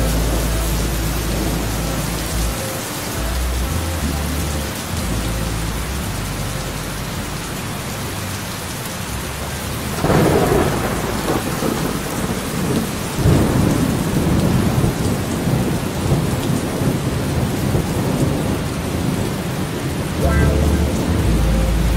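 Steady rain with thunder rumbling deep and low. A louder peal of thunder breaks about halfway through, and the rumbling returns near the end.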